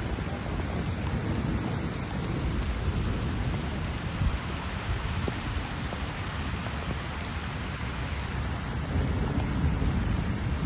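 Heavy rain pouring steadily, with a low rumble underneath and a brief louder knock about four seconds in.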